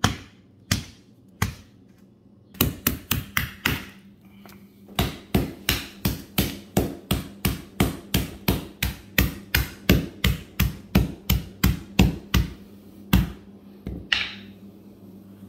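Rubber mallet pounding lump charcoal wrapped in a cloth on a concrete floor, crushing the lumps into small gravel-sized pieces. Dozens of sharp blows come a few spaced at first, then a quick run, a short pause, then a steady run of about three a second, with two last blows near the end.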